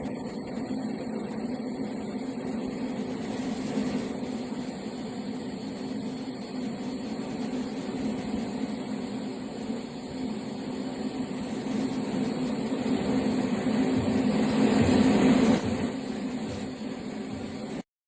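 TIG (gas tungsten arc) welding arc running steadily with a buzzing hum and hiss. It grows louder about 14 seconds in, then drops back, and stops abruptly near the end.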